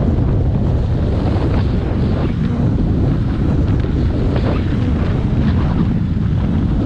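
Wind buffeting the camera's microphone while sailing a Kitewing wing sail at speed over lake ice: a loud, steady low rumble with a fainter rush above it.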